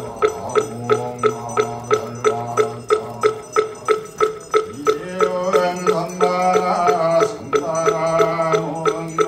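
Buddhist monks chanting in low, held voices to a steady beat of a moktak (wooden fish), struck about three times a second. The chant grows fuller about halfway through.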